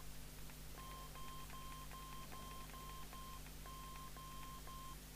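Short, evenly pitched key beeps from a PNI HP55 CB radio as its channel buttons are pressed over and over to step through the channels, about two to three beeps a second, nine or so in all, with a short pause about two-thirds of the way through.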